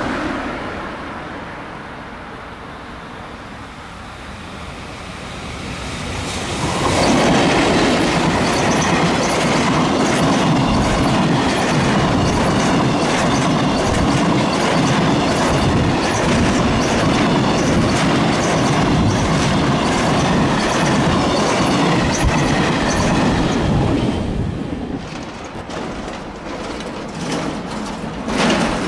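A freight train of empty oil tank wagons, hauled by an EF65 electric locomotive, passing close by, its wheels clattering over the rail joints. The noise builds over the first several seconds, stays loud through the middle, then thins into separate wheel clacks as the last wagons go by.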